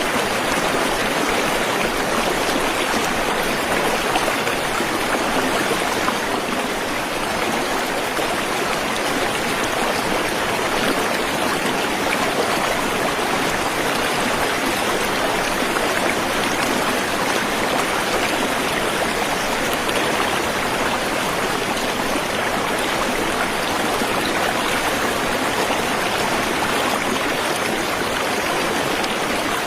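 Waterfall and stream water rushing in a steady, even stream.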